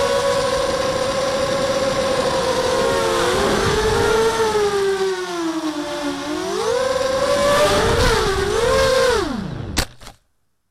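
ZMR250 quadcopter's brushless motors and propellers whining as heard through its onboard camera, the pitch dipping and climbing with the throttle. Near the end the whine drops away, there is a sharp knock as the quad comes down in the grass, and then the sound stops.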